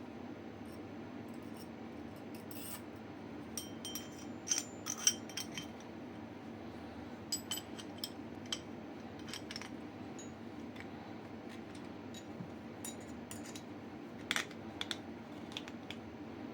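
Metal parts of a Mosin-Nagant bolt-action rifle clicking and clinking as they are handled, in three short clusters of sharp knocks, with a steady low hum underneath.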